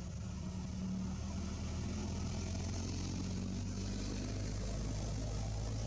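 A motor engine running steadily with a low hum, getting a little louder about a second in.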